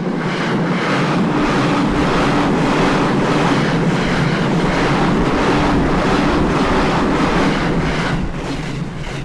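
A JR Sobu Main Line electric train passing close by, its wheels clattering over the rail joints in a quick, even rhythm under a rush of air noise. It starts suddenly and eases a little near the end.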